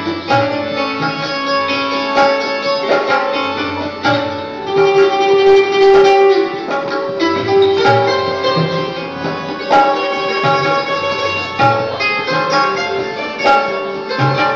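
Live ghazal music: a plucked string instrument plays a melody of ringing notes over tabla strokes.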